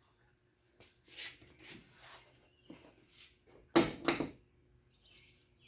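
Soft handling and rustling of parts or tools, then two sharp clicks close together about four seconds in.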